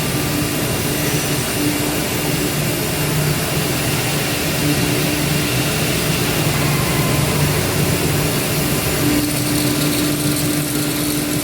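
CNC router running steadily: a constant mechanical whir with a low steady hum and hiss, no change in pace.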